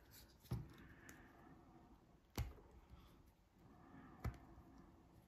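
Three short, sharp clicks about two seconds apart from a Leatherman Juice XE6 multitool, its folding tools snapping against their retention springs as they are worked.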